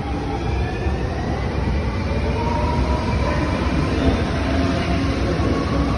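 Transperth C-series electric train (Alstom X'Trapolis 100 set) accelerating away from the platform: a steady low rumble of wheels and running gear with faint rising electric whines from the traction motors, growing slightly louder.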